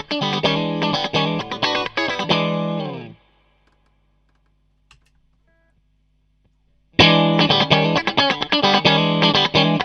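Electric guitar played through a Klon Centaur-style overdrive pedal, a mildly driven riff of chords and single notes. The playing rings out and stops about three seconds in, a single click sounds near the middle of the gap, and the guitar starts again abruptly about seven seconds in.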